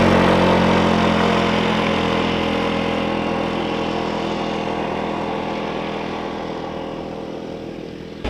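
Motorbike engine running at a steady pitch, its sound fading gradually over several seconds.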